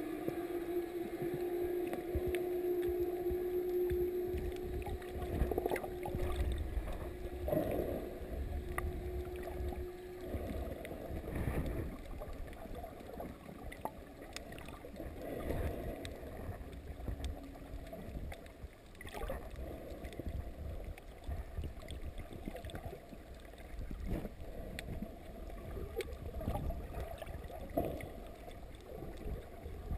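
Muffled underwater sound heard through a camera held below the surface: water movement with irregular soft knocks. A steady hum runs through the first third, then stops.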